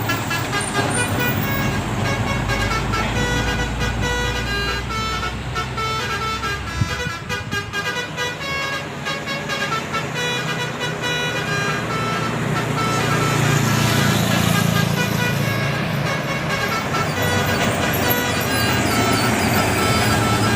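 Bus 'telolet basuri' multi-tone air horn playing a quick melodic tune of short notes, over the low rumble of a bus engine that grows louder in the second half.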